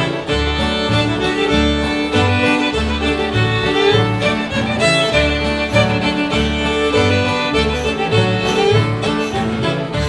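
A fiddle and an acoustic guitar play a fiddle tune together, the fiddle carrying the melody over the guitar's steady rhythm of bass notes and strums.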